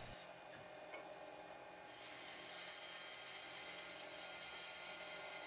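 Bandsaw running faintly with a steady whine as its blade rips a timber tenon.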